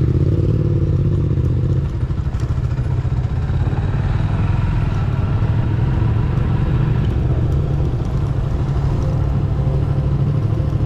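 Motorcycle running at a steady cruise while being ridden, a continuous low engine and road rumble.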